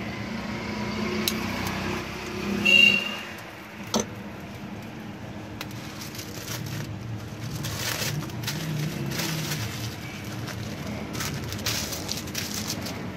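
Thin plastic wrapping crinkling and rustling as burgers are wrapped by hand, over a steady low rumble of street traffic. A brief loud high-pitched beep about three seconds in and a sharp click a second later.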